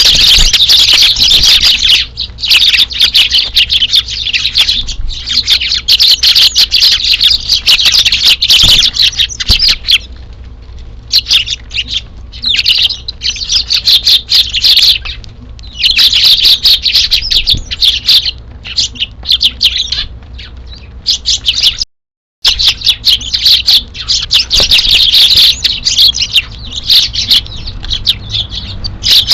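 A flock of Eurasian tree sparrows chirping loudly and continuously, in dense stretches with short lulls. The sound cuts out completely for half a second about two-thirds of the way through.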